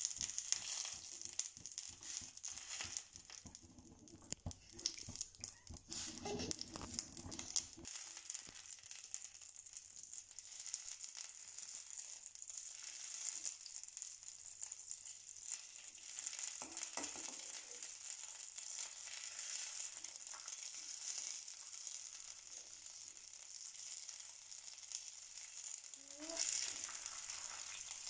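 Butter melting and sizzling with a fine steady crackle in a stainless steel pan on a medium flame, the first stage of clarifying it into ghee. A steel ladle stirs and scrapes against the pan, clattering most in the first several seconds.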